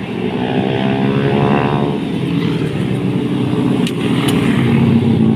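Several small motorcycle engines running together as a group of bikes rides past, their overlapping engine notes rising and falling in pitch, with one climbing sharply about a second and a half in.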